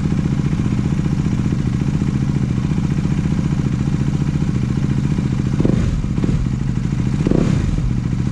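Motorcycle engine idling with a steady, fast exhaust beat, the throttle blipped into a few short revs in the second half.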